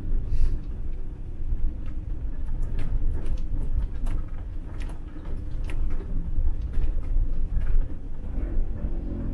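Campervan driving over a potholed gravel road: a steady low rumble of engine and tyres, with scattered clicks and knocks from the rough surface.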